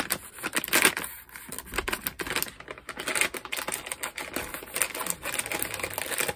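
Plastic snack bag crinkling and crackling as it is handled and cut open: a dense run of sharp, irregular clicks.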